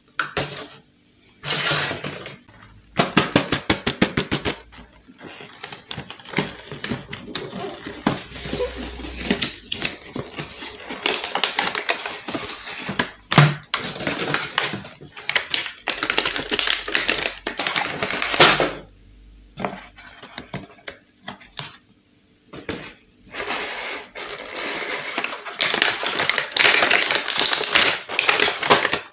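Clear plastic blister packaging crinkling, crackling and clicking as it is handled, in bursts with short pauses.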